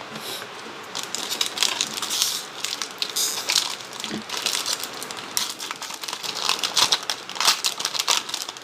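Crinkling and tearing of a foil trading-card pack wrapper being handled and opened, in irregular rustling bursts.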